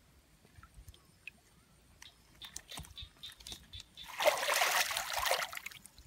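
Splashing in shallow water, loud for about a second and a half starting a little past the middle, from a freshly caught fish thrashing as it is handled into a basket. A few light clicks and small drips come before it.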